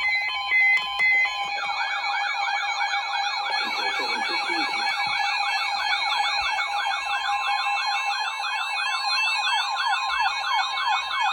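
Electronic siren yelping in rapid rising-and-falling sweeps, about three a second, over a steady held tone, after a few short beeps at the start.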